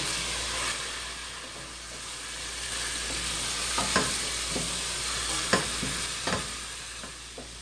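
Chopped onions and whole spices sizzling in hot oil in a stainless steel pot, stirred with a wooden spatula that scrapes and knocks against the pot a few times around the middle and near the end.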